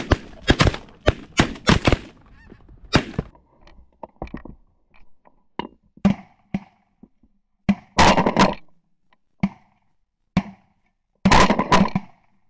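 Snow geese honking and calling overhead, with a quick string of shotgun shots in the first three seconds.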